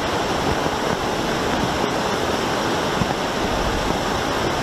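Muddy floodwater rushing down a swollen concrete channel: a steady, unbroken rush of fast-moving water.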